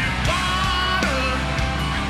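Hard rock band playing live, with distorted guitars and drums under a male lead singer.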